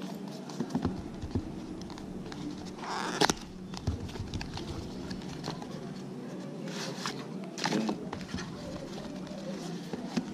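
Small cardboard box being handled and opened by hand: scattered taps and clicks, with a brief scraping rustle about three seconds in and more around seven to eight seconds, over a steady low hum.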